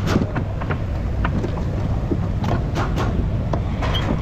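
Steady low rumble with scattered light clicks and knocks as a front coil-spring strut assembly is handled and worked out of the wheel well.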